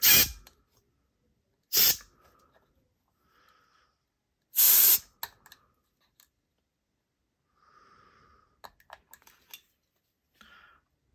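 Three short blasts from a can of compressed air, used to blow out a folding knife's parts; the third, about four and a half seconds in, is the longest. Faint clicks and handling of small parts follow.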